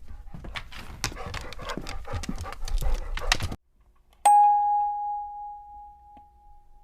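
A dense stretch of rapid clicks and noise from an animal clip cuts off sharply about three and a half seconds in. Then a single bell ding rings out and fades over about two seconds.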